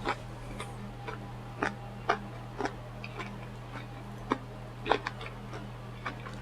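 Quiet eating sounds: about a dozen short clicks and smacks of chewing, irregularly spaced, over a steady low hum.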